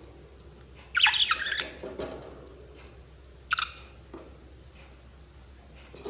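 Pet Australian parrots calling: a loud, harsh squawk about a second in, a shorter sharp call a little past halfway, and soft low chatter in between.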